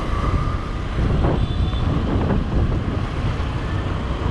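Wind rushing and buffeting over the microphone of a moving motorcycle, with the steady rumble of the bike and road underneath.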